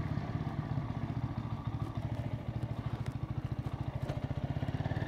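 Mutt Mongrel 250's 250cc single-cylinder engine running steadily at low revs, with an even pulsing beat.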